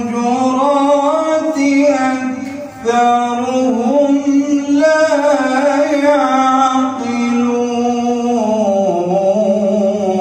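A solo man's voice reciting the Qur'an in a melodic, chanted style, holding long notes that slide in pitch. There is one short breath pause about three seconds in, and the phrase falls in pitch near the end.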